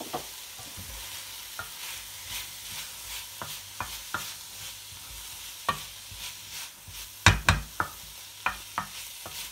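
Wooden spoon stirring green peas into onion-tomato masala in a metal kadhai, scraping and knocking against the pan over a steady sizzle of frying. A cluster of louder knocks comes about seven seconds in.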